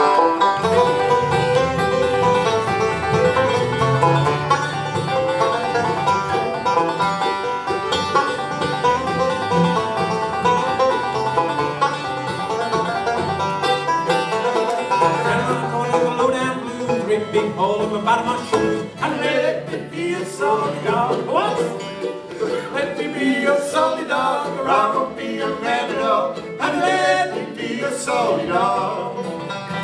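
Acoustic bluegrass band playing an instrumental passage together on banjo, fiddle, mandolin and flat-picked acoustic guitar.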